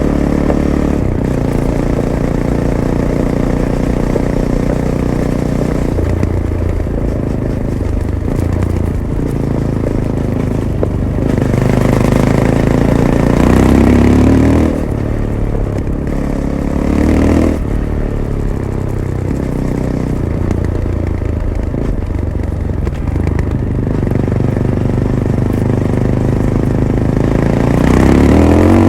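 Fantic Caballero 500's single-cylinder engine running through its stock Arrow exhaust while the bike is ridden. The revs climb under throttle and fall off sharply as the throttle closes a couple of times midway, then climb again near the end.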